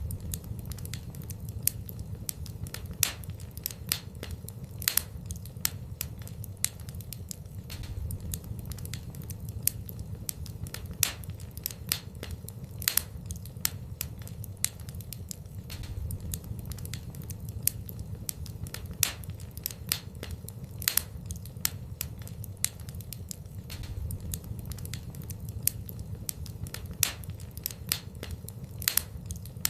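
Fire burning in a fireplace: irregular crackles and pops several times a second, with a louder snap every second or two, over a steady low rumble of the flames.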